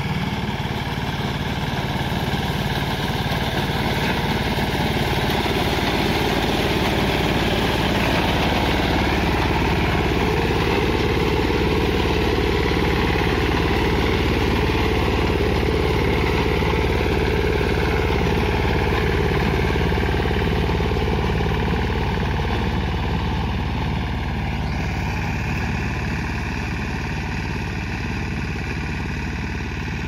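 The Greaves 10 HP engine of a three-wheel reaper binder runs steadily under load while the machine cuts wheat. It grows louder towards the middle and then fades slightly as the machine moves away.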